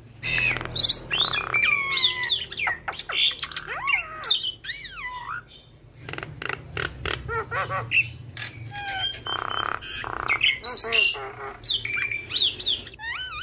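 Javan myna (jalak kebo) in full song: a busy, varied run of whistles, rising and falling glides and harsh squawks, packed with mimicked notes, with a short pause about halfway through.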